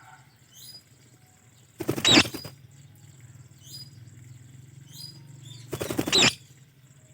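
White Indian ringneck parrot giving two loud, harsh screeches about four seconds apart, with a few short, faint falling chirps in between.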